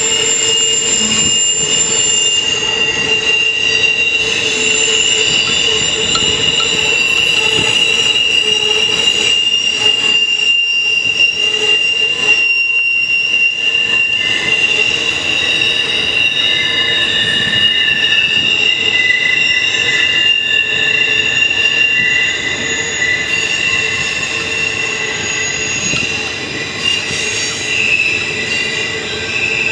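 Intermodal freight train rolling past, its wheels squealing on the rails in several steady high-pitched tones over the rumble of the cars.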